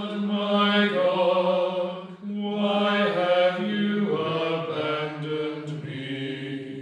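A man's voice chanting a slow liturgical melody in long held notes, with a short break for breath about two seconds in and the last note fading away near the end.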